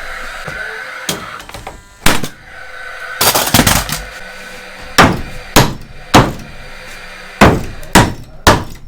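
Hammer blows on wooden 2x4 framing: a single strike about two seconds in, a rattling knock around three and a half seconds, then six sharp strikes in two quick groups of three.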